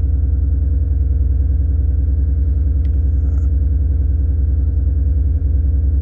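Mercedes G63's M278 5.5-litre twin-turbo V8 idling steadily with an even low pulse. The engine has been throwing random multi-cylinder misfires, but with its codes just cleared it idles okay.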